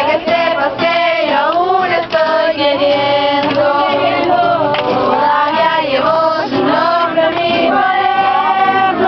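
A group of voices singing a song together, with long held notes gliding up and down and no break.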